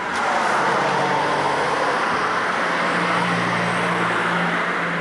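Car running, heard from inside the cabin: a click at the start, then a steady noisy rush with a low engine hum underneath.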